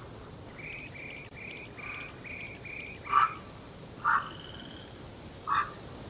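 Forest birds calling: a quick run of about seven short, high notes, then three loud, short, harsh calls spaced about a second apart, over faint background hiss.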